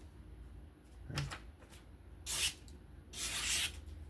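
A soft knock about a second in, then two short scraping swishes of a knife blade being stroked, the second one longer.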